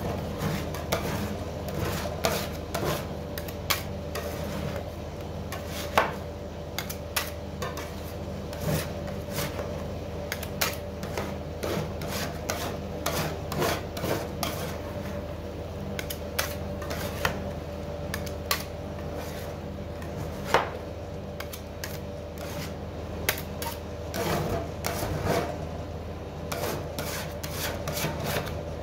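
Two metal scrapers scraping, chopping and tapping on the steel plate of a rolled-ice-cream freezer as the cream base is mixed and spread while it freezes. A few sharper knocks come about 6 and 20 seconds in, and there is a steady low hum underneath.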